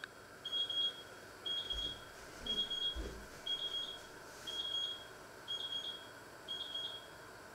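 Electronic alarm beeping in bursts about once a second, each burst a quick run of high-pitched beeps; it stops about seven seconds in.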